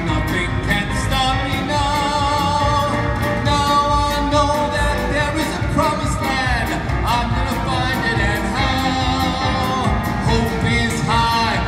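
A male singer holding long, gliding notes over a live band of guitars and piano, with a steady beat.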